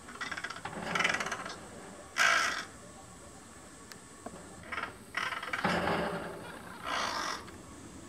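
Crow calling: a string of about five calls of differing length, the loudest a short one about two seconds in, the first with a rapid clicking, rattling texture.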